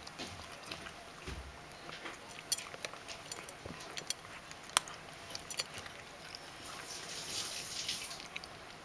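Ragdoll cat crunching dry kibble from a stainless steel bowl: irregular sharp crunches, one loudest about five seconds in.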